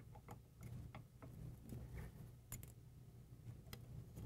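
Faint, irregular clicks and ticks of metal microscope parts being handled as the fluorescence cube holder and its LED light source are taken off the frame.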